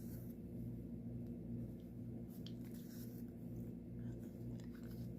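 Faint scratches and light ticks of a needle and floss being drawn through stamped cross-stitch fabric, over a low steady hum.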